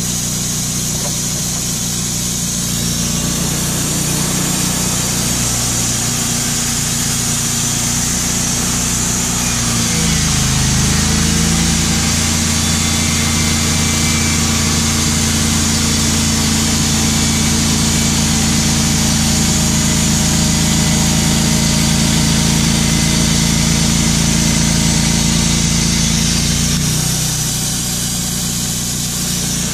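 Wood-Mizer LT35 portable band sawmill running steadily while sawing 2x4s from a white pine cant. About ten seconds in the engine note dips briefly and settles into a different steady pitch, then changes back near the end.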